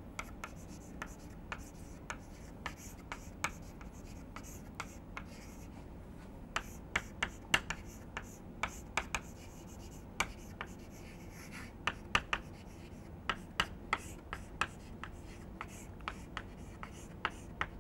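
Chalk writing on a blackboard: short, irregular taps and scratches as each letter is stroked, coming in clusters with brief pauses between words.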